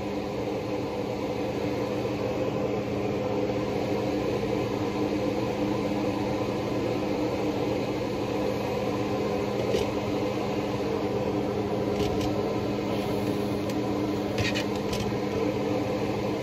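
An electric fan motor running steadily with a hum, having just come up to speed, with a few light clicks in the second half.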